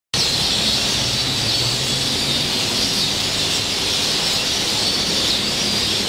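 A large flock of birds chattering as they settle into a roost tree: a dense, steady mass of high chirps. A low hum underneath fades out about halfway through.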